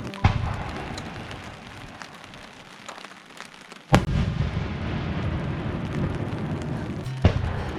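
Fireworks shells bursting overhead: three sharp booms about three and a half seconds apart, each followed by a low rumbling echo.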